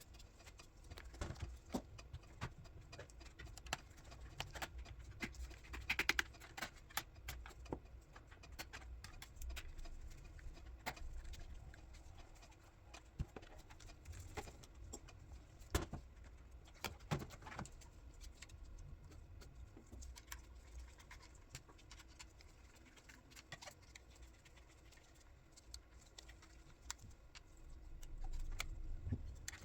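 Scattered small clicks, taps and light scrapes of hands working on a ThinkPad X220 laptop's casing and parts, such as screws, covers and memory or drive modules being handled, with the busiest clatter about six seconds in and again around fifteen to seventeen seconds.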